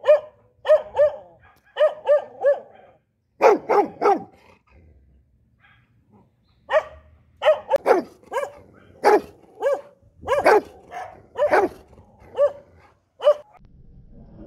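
Rottweiler barking: a run of about twenty short barks in quick groups, with a pause of about two seconds a third of the way through before the barking picks up again.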